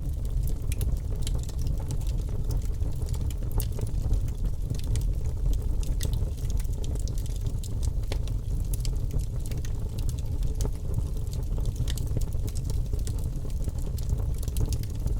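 Wood fire burning in a fireplace: a steady low rumble with frequent sharp crackles and pops.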